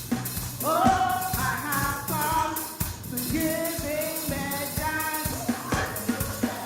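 Gospel praise and worship music: voices singing over a band with drums and bass.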